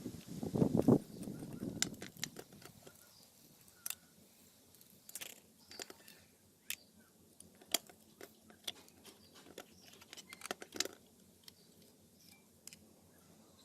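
Scattered small clicks and taps of hard little parts being handled, with a short, louder rubbing scrape in the first two seconds.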